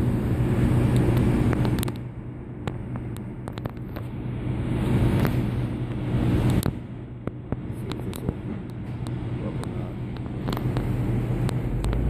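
Steady low machinery hum mixed with a truck engine running, with a few light clicks over it. The hum is noise from a neighbouring business's machines that carries far down the alley.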